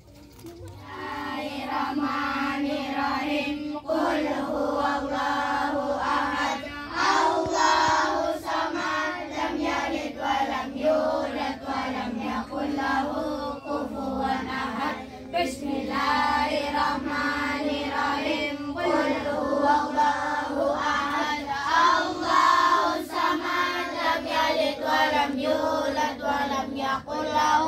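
A group of children's voices chanting an Islamic recitation in unison, in a continuous sing-song drone.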